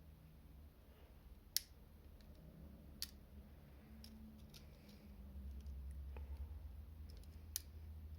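Three sharp plastic clicks over a low hum that grows louder about two-thirds of the way in: an N gauge model train and its plastic packaging being handled.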